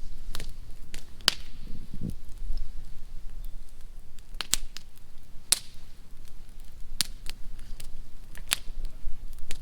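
Wood bonfire crackling, with sharp pops at irregular intervals, about one every second or so.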